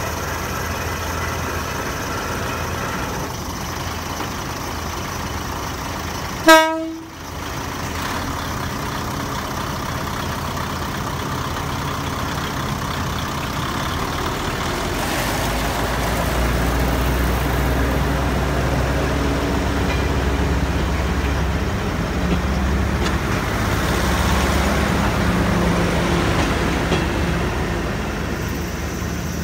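KiHa 200 diesel railcar sounding one short toot on its horn about six seconds in. Its diesel engine runs steadily, then the low rumble grows from about halfway as the railcar pulls away.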